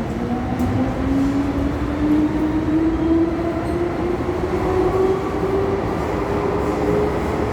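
MTR M-train electric multiple unit accelerating, heard from inside the carriage: its traction motor whine climbs steadily in pitch over a constant rumble of wheels on track.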